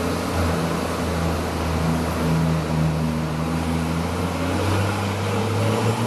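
Garbage truck engine running steadily, a low hum with some street noise.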